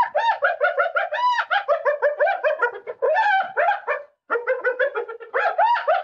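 Spotted hyena giggling: a rapid run of short, high, up-and-down yelping notes, about six or seven a second. It breaks off about four seconds in and starts again a moment later.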